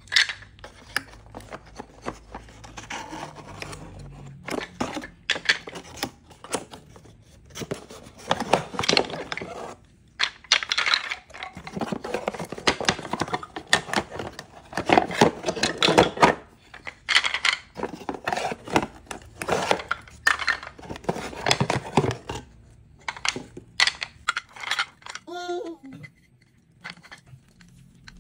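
Wooden toy train track pieces clacking and knocking against each other as they are handled and lifted out of a cardboard box, with cardboard rustling and scraping. The clatter comes in many quick knocks, busiest through the middle.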